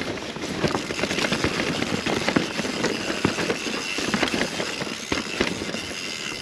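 Mountain bike rattling down a rough dirt trail: tyres running over roots and rough ground, with a dense, irregular clatter of knocks and clicks from the bike.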